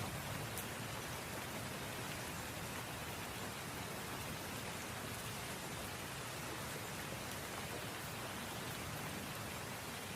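Steady rain falling, a continuous even hiss with faint individual drop ticks.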